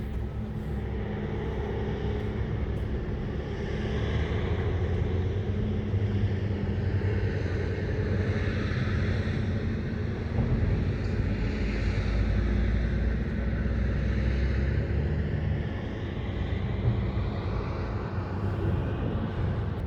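Hitachi 870 excavator's diesel engine running steadily under load, a little louder and deeper from about halfway through.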